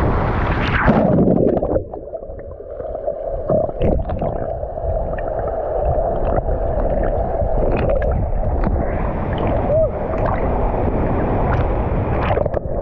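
A splash and rush of water as a swimmer dives into a waterfall pool. About two seconds in it turns into muffled underwater rumbling and gurgling, with small bubbly clicks, heard from below the surface.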